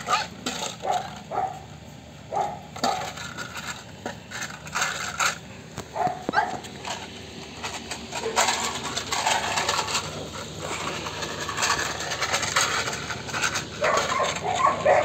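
Belgian Malinois puppies scuffling about, with irregular clatters, scrapes and metallic clinks, busiest in the middle.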